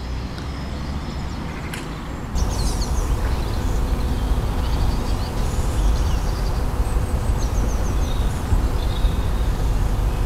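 Outdoor ambience: a steady low rumble, typical of wind on the microphone, that grows louder about two seconds in, with small birds chirping in short quick runs of high notes several times.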